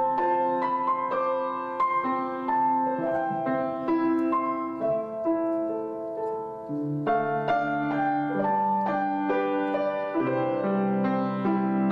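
Background piano music: a slow, gentle melody over sustained chords.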